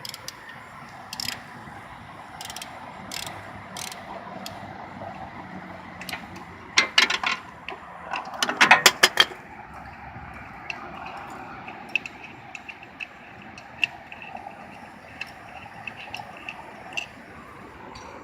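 Hand ratchet with a 14 mm socket clicking as it loosens a rear brake caliper bolt: scattered single clicks, with two quick runs of rapid clicking about seven and nine seconds in.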